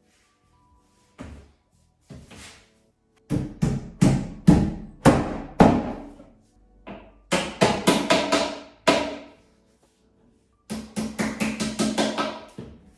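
Hard knocks on the particleboard panels of an IKEA Kallax shelf unit under assembly, each knock ringing briefly. They come in three runs: about two a second at first, then faster, ending in a quick flurry.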